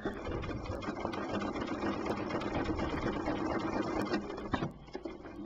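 Sewing machine running steadily at speed, free-motion quilting stitches through the layers of a quilt. It stops about four and a half seconds in.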